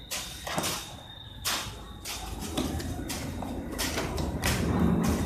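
Cardboard box flaps being pulled open and handled, a series of short scrapes and rustles.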